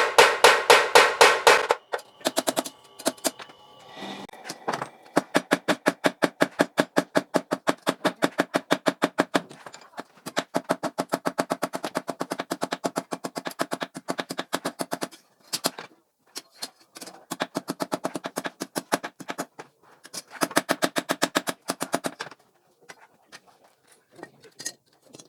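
Mechanical blacksmith's power hammer pounding hot steel in quick runs of about seven blows a second, stopping and starting in short breaks, while a sickle is forged. The blows are loudest for the first two seconds, then softer.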